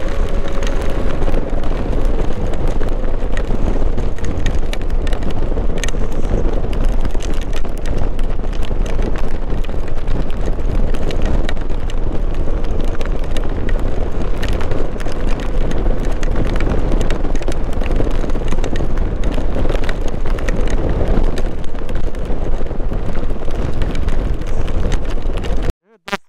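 Heavy wind noise on the microphone of a Hero Xpulse 200 motorcycle riding through heavy rain, with the bike's single-cylinder engine faint beneath. The sound cuts off abruptly near the end.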